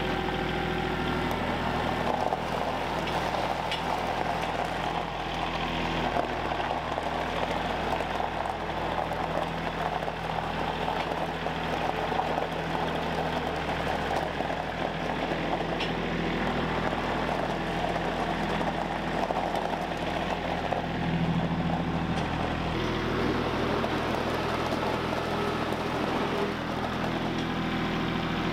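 Kubota compact tractor's diesel engine running steadily as it drives over gravel and works its front loader, the engine note shifting a little over twenty seconds in.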